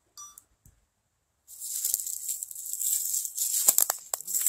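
Dry fallen leaves rustling and crunching underfoot, a crisp crackling hiss that starts about a second and a half in after near silence, with a few sharper crackles near the end.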